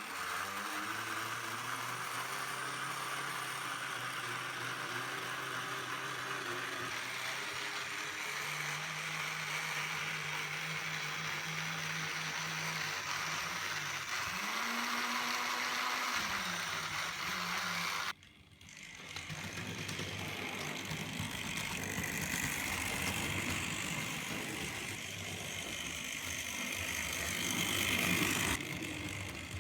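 Vintage Triang Hornby model locomotive running on the track: a steady electric motor hum under a continuous rattle of wheels and gears. The motor's pitch steps up and rises briefly about halfway through. The sound cuts out for a moment a little over halfway, then comes back louder and busier.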